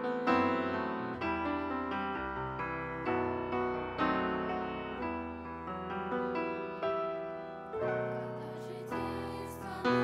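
Grand piano played solo: chords and melody notes struck one after another, each ringing on and fading until the next.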